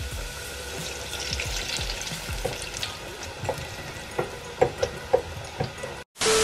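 Battered salmon sticks frying in an electric deep fryer, the hot oil sizzling with sharp pops and clicks from about two and a half to five seconds in. Just before the end the sound cuts out and a loud steady tone with hiss begins.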